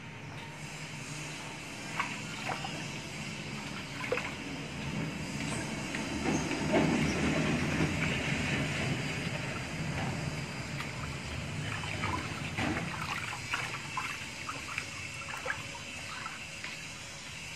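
Water splashing and dripping in a tub as a wet Pomeranian is bathed and lifted, with a few small knocks and a steady low hum underneath. The splashing is loudest in the middle.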